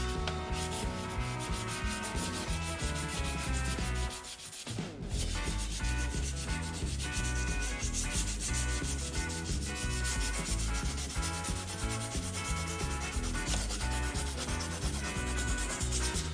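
Sandpaper rubbed by hand in quick, repeated strokes over the painted body of an RC-scale Jeep Cherokee, wearing through the paint to give it a faded patina. There is a short pause about four seconds in. Background music plays underneath.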